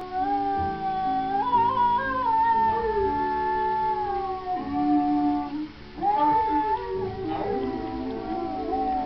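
A pet dog howling along with the howling dogs and music of an animated film's soundtrack playing on a TV: long, held, wavering howls whose pitch steps up and down, with a short break a little before the middle.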